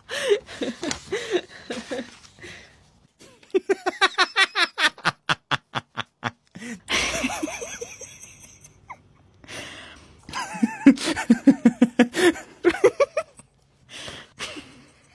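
Human laughter in two long runs of quick, evenly repeated 'ha' pulses, one about four seconds in and one about eleven seconds in.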